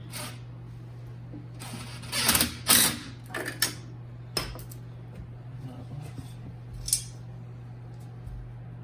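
Hand work on parts: a few short scrapes and rustles, the loudest pair about two to three seconds in, over a steady low hum.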